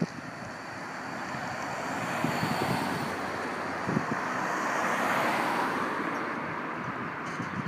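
Cars driving past on the road one after another, their tyre and engine noise swelling twice and fading.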